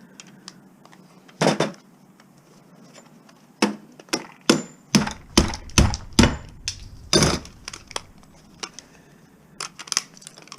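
Scrap metal part being banged hard to knock a stuck piece loose: one heavy knock, then a run of about nine sharp bangs roughly twice a second, and a few lighter knocks near the end.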